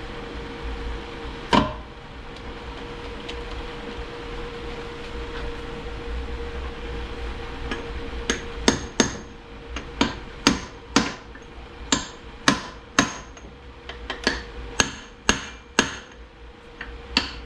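Hammer taps on a Ford AOD transmission part being driven on to seat it during reassembly. There is one strike about a second and a half in, then, from about halfway, a steady run of sharp taps about two a second.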